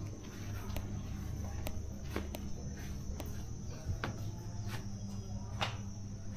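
Footsteps on a tiled porch, short sharp steps every half second to a second, over a steady high-pitched insect drone and a low hum.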